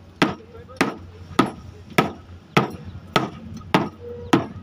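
Wooden mallet pounding a spliced rubber conveyor belt joint, eight even blows a little under two a second, pressing the fresh splice down to bond it.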